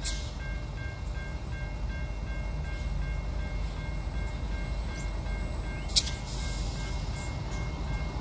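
Steady low rumble of The Ghan's diesel locomotive approaching from a distance. Faint steady high tones run over it, and a single sharp click comes about six seconds in.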